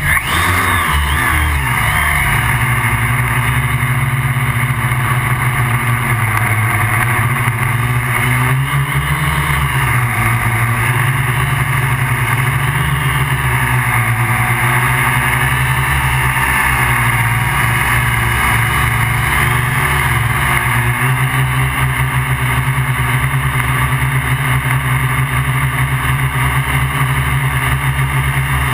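Electric motors and propellers of a MikroKopter QuadroKopter XL quadcopter, heard from the camera mounted on it: a loud, steady buzz whose pitch climbs as it spins up and lifts off near the start, then wavers as the motors adjust in flight.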